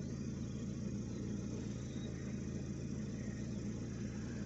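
An engine running steadily with an even, low hum that does not change in pitch.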